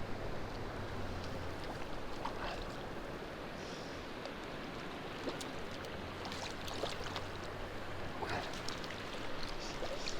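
Small mountain creek running steadily, with a few faint ticks and splashes scattered through the second half.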